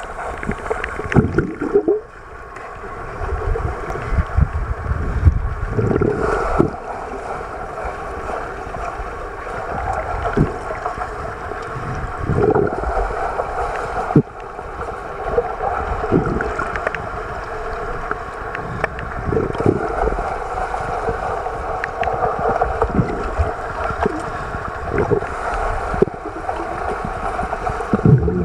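Muffled underwater rushing and bubbling in a swimming pool as swimmers dive in and glide past, with repeated dull thumps every few seconds.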